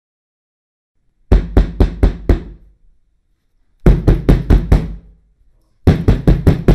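Hard knocking on a wooden door: three bursts of five or six rapid, loud knocks, about four a second, with short pauses between.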